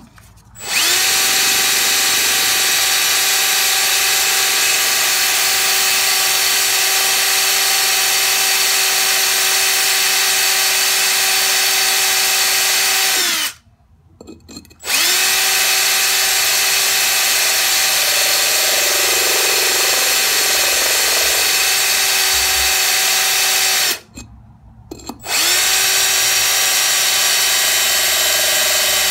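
Power drill spinning a diamond hole saw into the glazed ceramic base of a plant pot, wetted with water: a steady motor whine in three long runs with two brief stops, about 13 and 24 seconds in.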